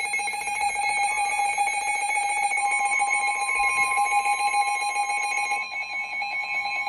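Electronic emergency-alert alarm tones going off: a rapidly pulsing alarm with a steady higher tone joining in about two and a half seconds in.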